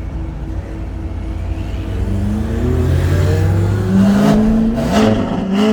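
Audi RS6 engine running steadily, then revved several times from about two seconds in, its pitch climbing and dropping with each rev.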